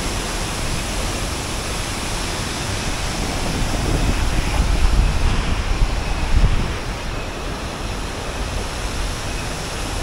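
Steady rush of a 35-metre waterfall and the stream below it. Wind rumbles on the microphone around the middle.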